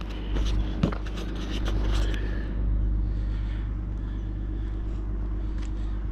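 Small boat outboard motor running steadily at low speed, with a few knocks in the first second.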